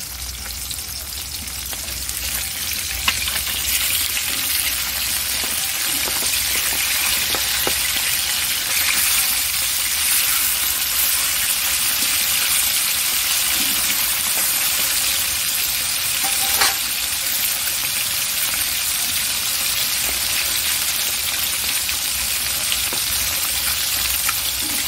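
Pieces of silver carp shallow-frying in hot oil in a wok, a steady sizzle with a couple of sharper pops.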